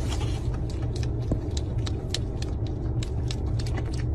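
Steady low road rumble inside a moving car's cabin, with a quick run of small, sharp clicks over it.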